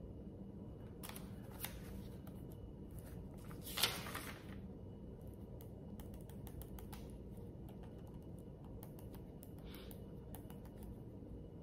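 Quiet room tone with faint scattered clicks and small handling noises, and one short burst of rustling noise about four seconds in.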